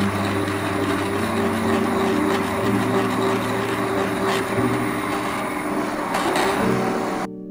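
Immersion blender running in a pot of thick soup, puréeing it: a loud, steady motor hum with churning, its pitch stepping up and down a few times as the load changes. It cuts off abruptly shortly before the end.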